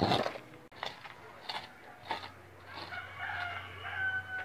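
A few short scrapes of a dustpan scooping ash and soil, then a rooster crowing in one long call that starts a little under three seconds in.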